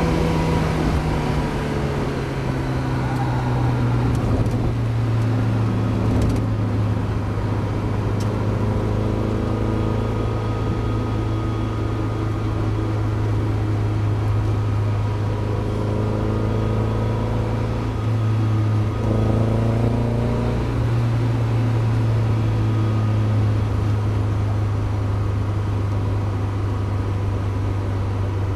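Mazda MX-5 race car's four-cylinder engine slowing down, its pitch falling at the start, then running at low, fairly steady revs with two brief rises in pitch in the second half.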